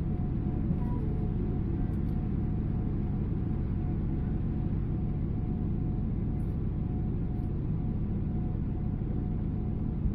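Cabin noise of a Boeing 777-300ER with GE90-115B engines at climb thrust just after takeoff: a steady, deep roar with a steady mid-pitched tone running through it.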